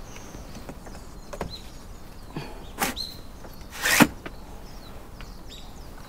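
Outdoor ambience with a few short, high bird chirps and scattered light clicks. About four seconds in, a brief louder rush ends in a sharp knock.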